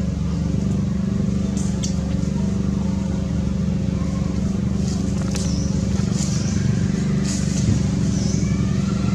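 An engine running steadily at an even pitch, with a few short, faint high squeaks over it.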